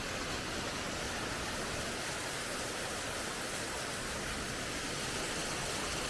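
Waterfall's water rushing as a steady, unbroken wash of noise.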